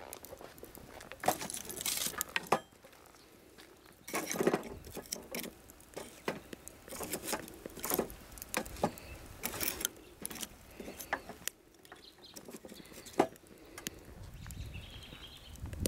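Pine sticks crackling and popping as they burn in a wood-fired rocket stove, an irregular run of sharp clicks and short crackly flurries.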